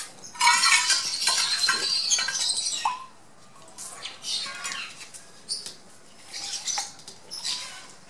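Parrots chirping and squawking, loudest and densest for the first three seconds, then scattered short falling calls. Water swirls in a steel bowl as it is rinsed.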